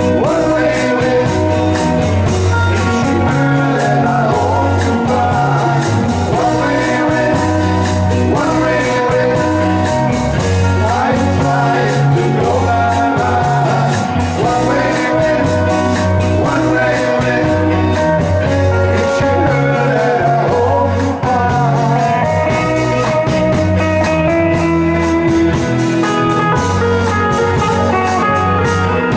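A live rock band playing loudly: electric bass, a drum kit with cymbals and electric guitar, over a steady repeating bass line.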